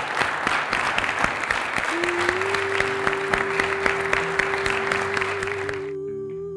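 A crowd of guests applauding and cheering, with music coming in about two seconds in: one long held note over lower notes. The applause cuts off suddenly near the end, leaving the music.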